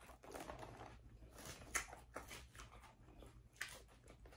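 Quiet close-up eating sounds: a fork picking through lettuce in a plastic salad container, with chewing and a few sharp clicks.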